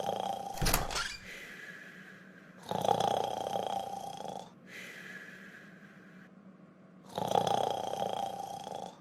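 Exaggerated cartoon snoring: three loud rasping snores about four to five seconds apart, each lasting about two seconds, with a quieter whistling breath between them. A short knock sounds under a second in.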